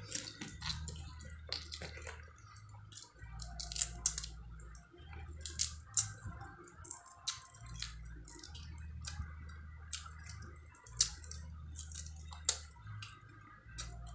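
Close-up mud crab eating: irregular sharp clicks and small cracks of crab shell being picked apart and chewed, several a second, over a low rumble.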